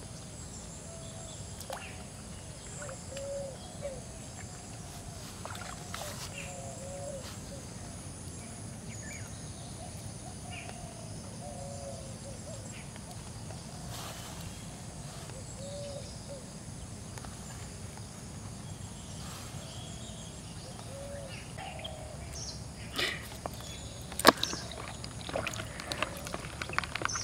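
Outdoor ambience by a pond: a steady background hiss with short, arched wildlife calls repeating every second or two. Near the end come a few sharp knocks and clatters, with one loud click standing out.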